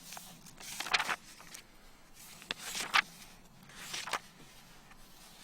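Pages of a paperback cookbook being turned, several papery swishes about a second or so apart while a recipe is searched for.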